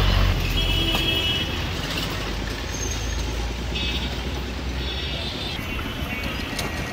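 Street traffic: a heavy vehicle's engine rumbles past, with short high-pitched tones sounding several times over it.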